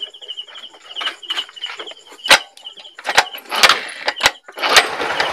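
GY6 125 scooter engine being started after a clutch lining replacement: a few sharp separate clacks, then near the end the engine catches and runs steadily.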